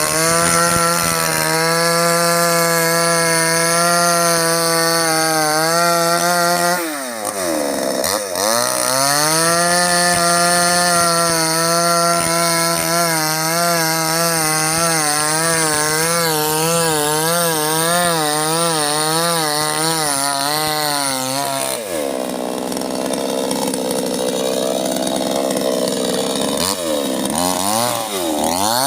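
Two-stroke chainsaw running at high revs while cutting oil palm. Its pitch wavers as the chain bites under load, and the revs dip sharply and pick up again a few times as the throttle is eased and reopened.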